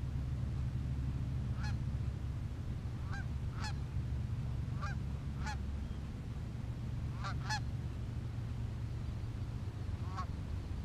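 Canada geese honking: short separate honks every second or so, a pair close together about seven seconds in, over a steady low rumble.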